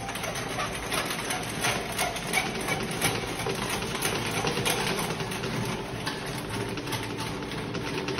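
Toilet auger being cranked into a clogged toilet: the cable rattling and scraping against the porcelain in the bowl as a rapid, irregular clicking.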